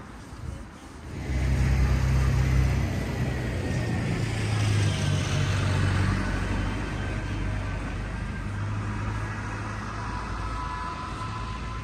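A motor vehicle passing close by on the street: its engine and tyre noise rise sharply about a second in, then fade slowly as it moves away, with a faint whine that falls in pitch.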